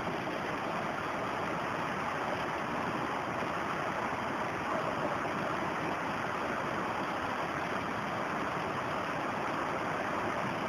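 Shallow rocky stream flowing over stones: a steady rush of water.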